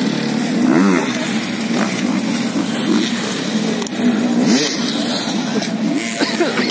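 Dirt bike engines running at idle, with short revs rising and falling in pitch about a second in, again around the middle and near the end.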